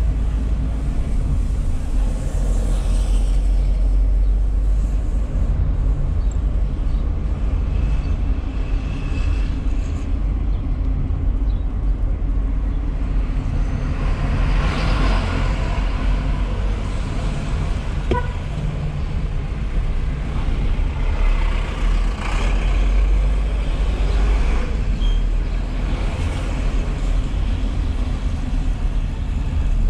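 Car driving slowly on town streets, heard from inside the cabin: a steady low engine and road rumble that swells twice in the middle stretch, with one short click about halfway.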